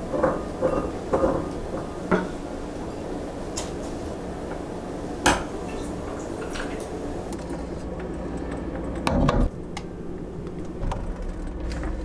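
Wooden spoon knocking and scraping against glass as pomegranate arils are spooned from a glass jar into a stemmed glass, giving a series of clinks and knocks in the first half. Later, water is poured from a plastic bottle into the glass.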